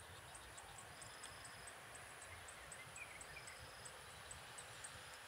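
Faint insects chirping: a steady run of high ticks, about four a second, with short buzzing trills every couple of seconds, over a faint low rumble.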